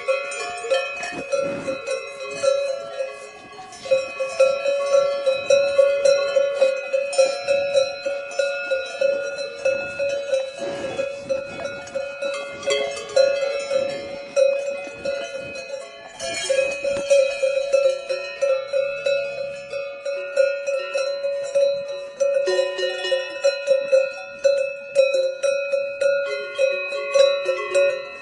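Several cowbells clanking irregularly and overlapping, one bell's ringing tone standing out above the rest.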